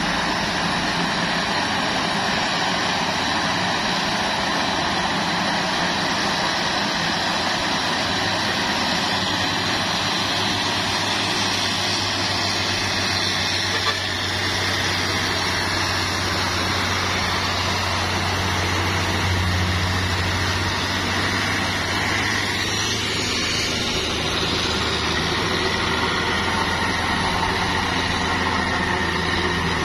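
Diesel engines of heavily loaded Mitsubishi Fuso trucks running hard as they climb a hill, with a steady engine and road noise. A deep low engine note grows louder from about halfway through as a truck passes close.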